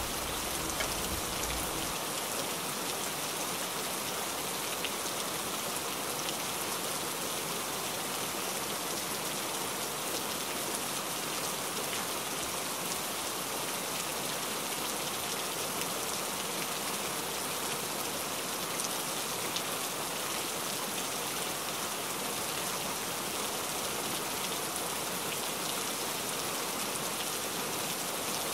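Steady, even hiss like falling rain, with no rhythm or breaks; a low hum underneath stops about two seconds in.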